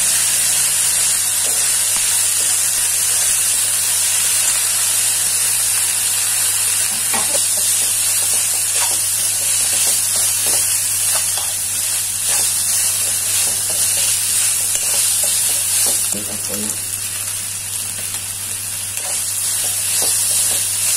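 Shredded cabbage, carrot and onion sizzling in hot oil in a steel kadhai while a metal spatula stirs them, scraping against the pan in scattered short clicks, over a steady low hum.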